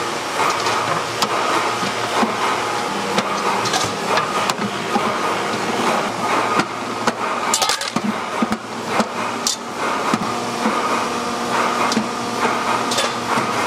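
Metal-working factory floor: a steady machine hum runs throughout, with frequent sharp metallic clanks and knocks from stainless steel sheet and machinery.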